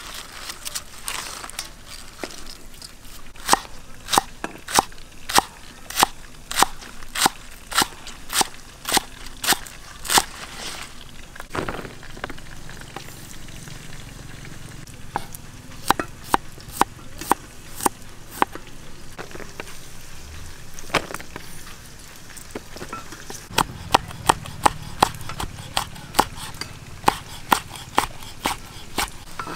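Large kitchen knife chopping on a round wooden chopping board: runs of sharp, evenly spaced chops, a little under two a second. There are three stretches with pauses between, the last while red chillies are sliced.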